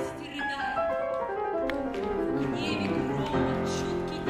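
Classical-style song: a voice singing German lyrics over piano accompaniment, with a quick run of falling notes near the start.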